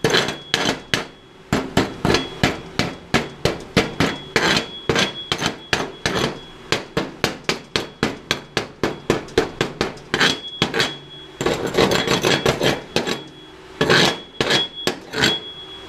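Chipping hammer rapping slag off a freshly laid 7018 stick-weld bead on steel plate, a quick series of sharp metallic strikes, about three or four a second, many with a short ring. The strokes come more closely packed for a couple of seconds past the middle.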